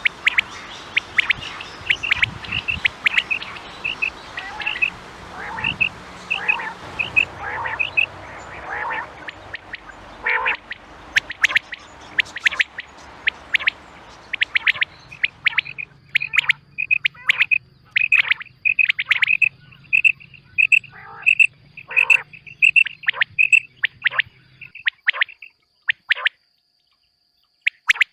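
Recorded quail calls: runs of short, high chirps repeated several times a second. This is the female quail's call, played as a lure for quail hunting. A faint steady high tone sits under the calls from about halfway through.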